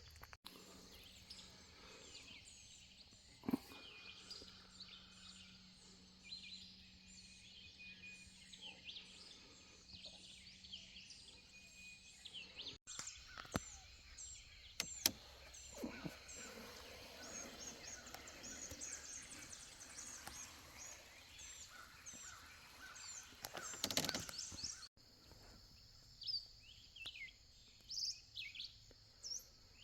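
Birds chirping and calling, many short high calls repeating over faint outdoor background noise, with a few soft knocks. The sound drops out for an instant twice.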